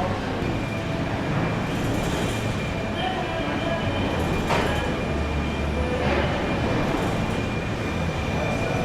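Car assembly-line machinery running: a steady mechanical rumble with faint whining tones and a sharp clank about four and a half seconds in.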